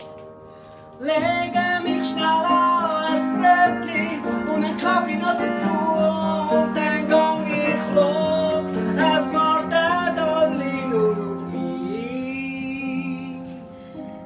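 A voice singing to strummed acoustic guitar. The singing and playing come in together about a second in, after a brief pause.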